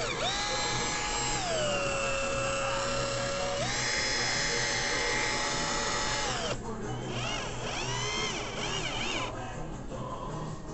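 Total 12 V cordless drill running with no load, a steady motor whine. The speed drops about a second and a half in, comes back up after nearly four seconds, and the motor stops a little past the middle.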